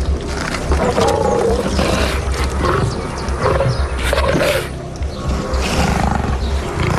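Big cats growling and snarling several times, over background music with a low pulsing beat.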